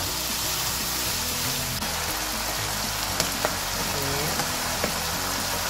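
Dried beancurd sheets and chicken sizzling in a hot wok as they are stir-fried and dark soy sauce goes in, with a few clicks of the wooden spatula. Soft background music plays underneath.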